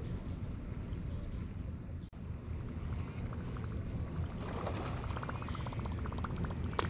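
Birds chirping now and then over a steady low rumble. In the second half there is a fast, even run of ticks lasting about two seconds.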